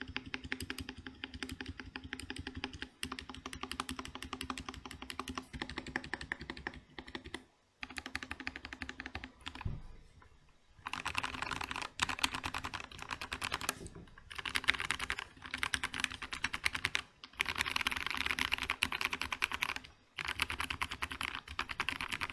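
Fast, continuous typing on a Vortex VX5 60% mechanical keyboard with lubed Otemu Brown tactile switches, foam inside the case and lubed stabilizers. A few brief pauses break the run, and the keystrokes get louder and sharper from about halfway.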